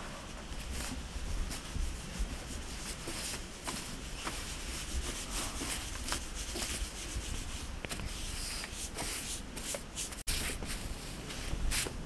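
Snow crunching and scraping under boots and hands, a run of irregular soft strokes over a steady low rumble.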